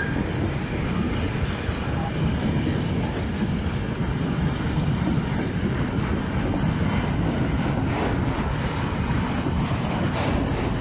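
Intermodal freight train of pocket wagons loaded with road semitrailers rolling past, a steady loud rumble and clatter of wagon wheels on the rails.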